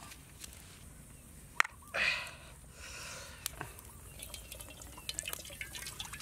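A small metal can of milk being pulled open, a sharp click followed by a short rasp as the lid peels back. From about five seconds in, milk pours from the can into a steel wok with many small dripping, spattering ticks.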